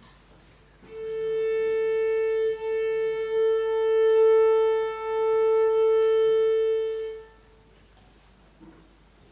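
One instrument holds a single long, steady note at the tuning A, about 440 Hz, for some six seconds, with two slight dips in loudness: the tuning note given to the orchestra before the piece.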